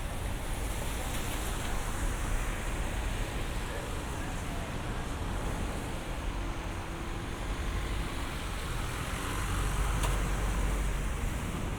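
City street traffic: a steady rumble and hiss of passing cars, swelling as a vehicle goes by louder near the end.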